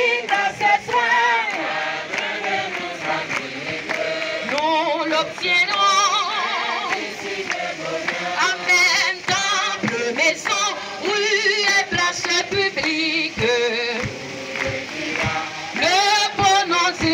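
A crowd singing a hymn together, a woman's voice leading on a microphone, with held, wavering notes.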